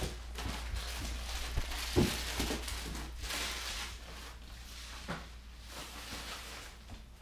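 Dogs moving about on a hardwood floor and rug: scattered soft knocks and rustling, the loudest knock about two seconds in, over a steady low hum.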